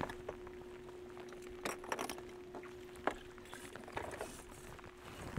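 A bass boat's livewell being opened in the rain: a faint steady hum, a few soft knocks and splashes, over light rain patter.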